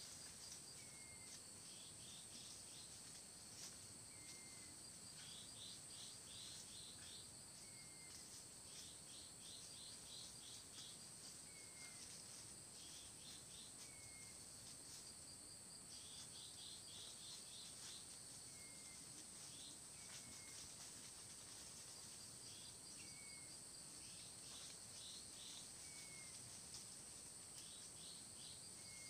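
Faint forest ambience: a steady high-pitched insect drone, with groups of quick chirps and a short falling bird call repeated about every two seconds.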